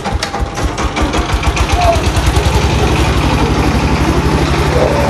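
A motor engine running close by, starting right at the beginning with a fast, even pulsing that grows louder and settles into a steady drone after about three seconds.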